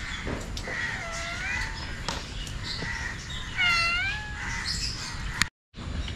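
Domestic cat meowing: two calls, about a second in and again near four seconds in, the second louder.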